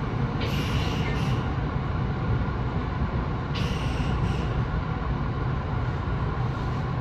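Kintetsu 6820 series electric commuter train heard from inside the front car: a steady low rumble, with two brief high squeals, each about a second long, starting about half a second and three and a half seconds in.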